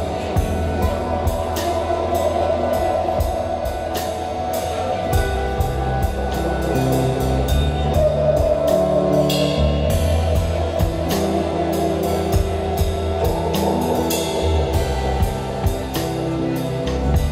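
Instrumental rock trio playing live: electric guitar, bass guitar and drum kit, with a steady beat of drum and cymbal hits about twice a second under held bass notes.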